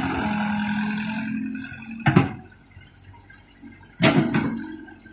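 Hydraulic excavator running at work between scoops while loading a dump truck: a steady engine-and-hydraulics sound that dies down after about a second and a half, then two sudden loud knocks, about two seconds apart.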